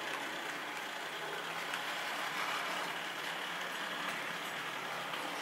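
HO scale model freight cars rolling along the track, a steady whirring rattle of small wheels on rails.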